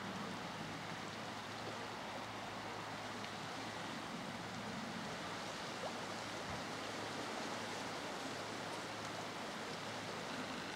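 Steady hiss of outdoor ambience, with a faint low steady hum underneath.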